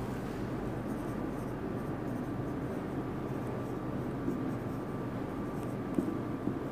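Marker pen writing on a whiteboard, a few short strokes of the felt tip over a steady background hiss.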